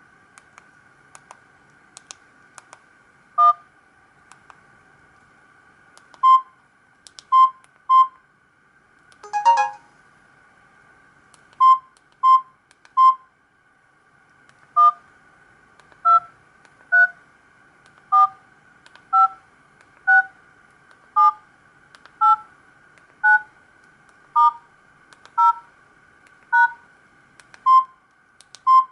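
Samsung GT-E1175T mobile phone keypad tones: short dual-tone DTMF beeps, one per key press at about one a second, stepping through the keypad in order. A few single-pitch beeps are mixed in, with a brief burst of quick tones about a third of the way through.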